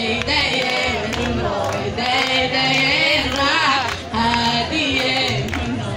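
Somali song playing for a traditional dance: singing with a wavering, ornamented melody over held low notes.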